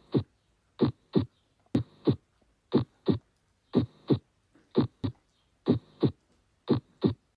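Recorded human heart sounds: a steady lub-dub, two thumps close together repeating about once a second.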